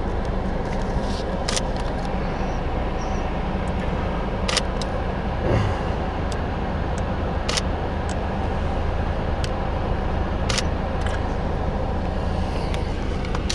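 Car engine idling steadily while the vehicle sits stopped, heard from inside the cabin, with a low even hum and a few scattered sharp clicks.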